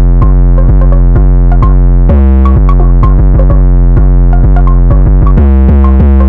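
Loud electronic hip-hop beat: deep bass notes that slide down in pitch, a repeating synth melody and drum-machine hi-hat ticks.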